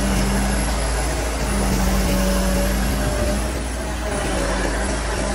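Kobelko SK200 hydraulic excavator running as it works, a steady diesel engine drone with a fainter higher hydraulic whine, easing briefly about two-thirds of the way through.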